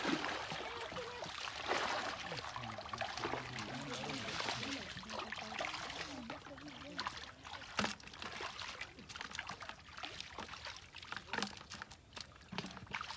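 Shallow muddy water sloshing and splashing as hands and legs move through it, groping for fish by hand, with many short irregular splashes.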